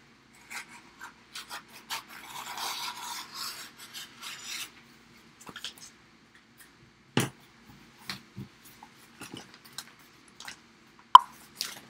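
Clear vinyl transfer tape and its backing sheet rustling and crinkling as they are handled and peeled apart, mostly in the first half, followed by scattered light taps and clicks with one sharp click near the end.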